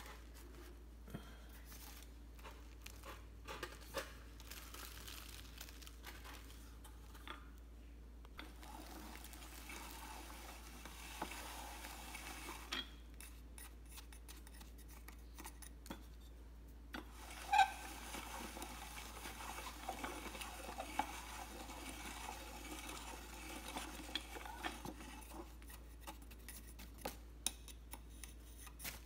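Hand-cranked meat grinder crushing dry pig-feed pellets into powder: irregular metallic clicks and scraping from the turning screw and plate, with one sharper click about 17 seconds in.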